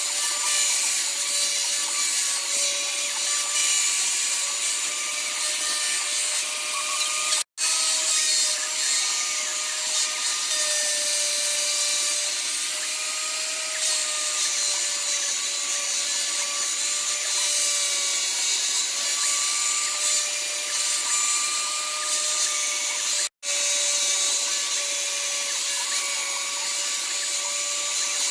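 High-speed electric tool motor running steadily with a slightly wavering whine over a strong hiss, cutting out completely for a split second twice.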